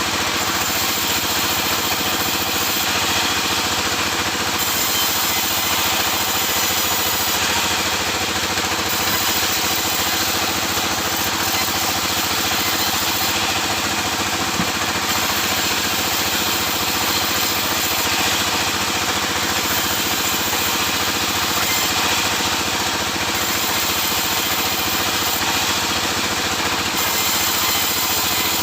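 Sawmill machinery running steadily, a constant engine-like drone with an even hiss that does not change.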